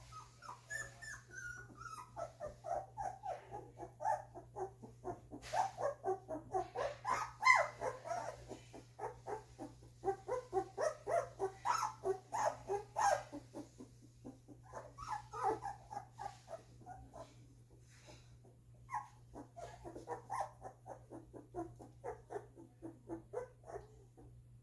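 Two-week-old golden retriever puppies whimpering and squeaking in quick runs of short, high calls, several a second, with brief lulls in between.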